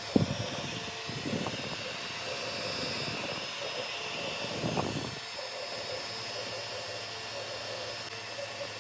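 Elegoo 3D printer running mid-print near the end of the job, its stepper motors and cooling fans giving a steady, pulsing whir. There is a sharp knock right at the start and some low rumbling during the first half.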